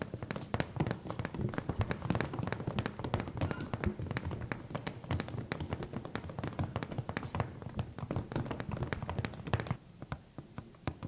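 Rapid, irregular tapping, many light taps a second, made as a foley effect. It stops suddenly shortly before the end.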